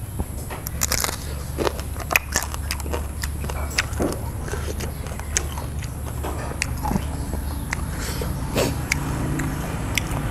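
Close-up eating: a person chewing sweet sea snail (spotted babylon) meat, with irregular crisp clicks and crunches over a steady low hum.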